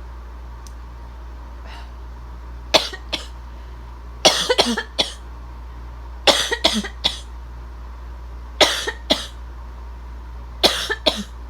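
A person coughing in short bouts of two to several dry coughs, the first bout about three seconds in and four more following, over a steady low background hum.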